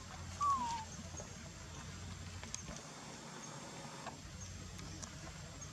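A young monkey gives one short squeak that falls in pitch, about half a second in, followed by a few faint clicks over a low background hum.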